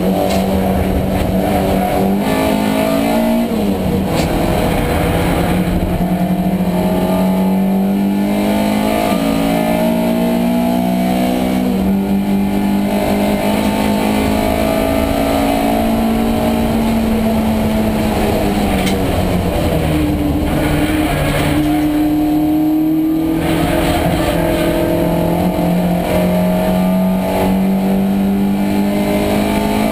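Race car engine heard from inside the cockpit under hard acceleration. The note climbs steadily, drops sharply about four and nine seconds in, slides down near twenty seconds, then climbs again, as the car changes gear and brakes for corners.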